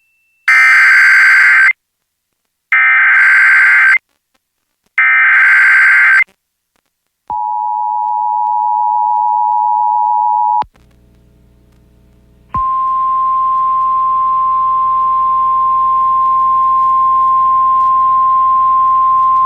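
Emergency Alert System tones received over the radio: three SAME digital header bursts about a second long each, then the two-tone EAS attention signal for about three seconds. After a short gap of low hum, the single steady NOAA Weather Radio warning alarm tone starts about twelve seconds in and holds, announcing a new flash flood warning.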